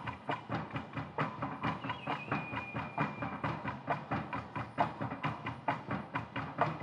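Fast, steady percussion accompaniment: sharp strikes at about five a second, with a faint high held tone for about a second near the middle.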